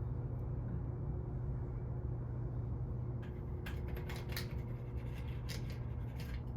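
Steady low hum with a run of small, sharp clicks and scratches in the second half from hand work on a torn window screen being glued and trimmed.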